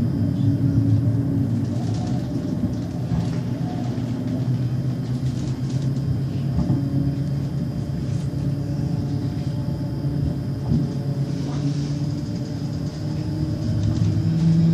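Tram running, heard from inside the passenger car: a steady rumble of the wheels on the rails with a low motor hum and a faint, high, steady whine, broken by a few light clicks.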